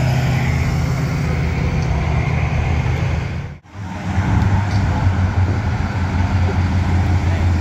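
Car engine running loud and steady at low revs. About halfway through the sound cuts out abruptly for a moment, and a steady engine sound then carries on.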